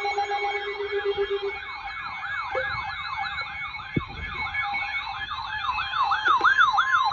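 Electronic emergency siren sound: several overlapping rapid yelping wails, each rising and falling a few times a second, over steady alert tones. It grows louder toward the end, and a single click comes about four seconds in.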